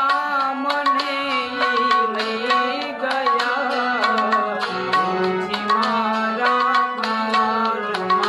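Harmonium and tabla playing a devotional bhajan melody: held reed notes over a low sustained tone, with the tabla striking a running beat.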